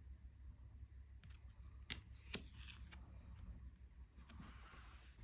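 Tarot cards handled by hand, faint: a few light clicks and taps between about one and three seconds in, then a soft sliding rustle of card on card near the end.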